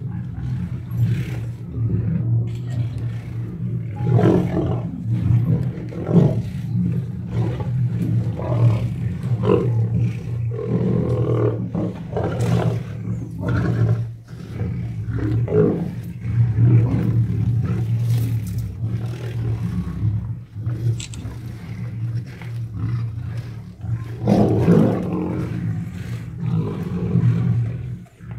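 A group of lions growling and snarling over a carcass as they feed: a deep, continuous rumble with louder snarls every few seconds.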